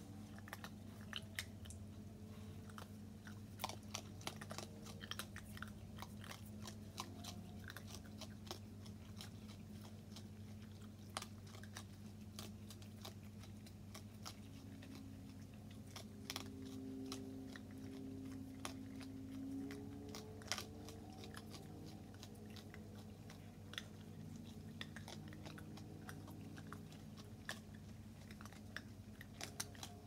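Raccoons, a mother and her kits, chewing dry kibble: many sharp, irregular crunches and clicks, over a steady low hum.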